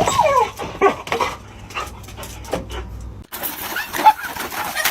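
A dog whining and yelping in short pitched cries, one sliding down in pitch near the start. About three seconds in the sound cuts abruptly to a different run of short high-pitched calls.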